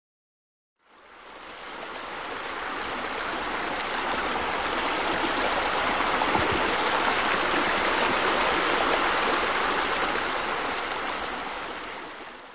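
Pool bubbler jets splashing: a steady rush of water that fades in about a second in and fades out at the end.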